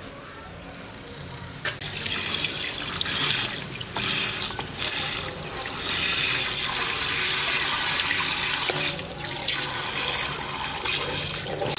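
Running water, starting about two seconds in and going on steadily with small surges.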